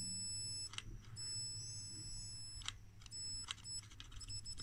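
High-pitched whine from the transistor high-voltage oscillator of a 1970s Nordisk Instrumentfabrik Handy Meg megger. It cuts out and comes back several times, with a click at each break, and stutters in short bursts near the end. The megger is drawing far more current than its two small transistors should handle, which the owner takes for a fault.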